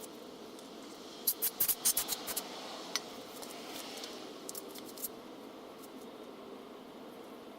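A quick run of sharp little clicks and taps from hand tools and small parts being handled, over a steady hiss, then a few more scattered clicks near the middle.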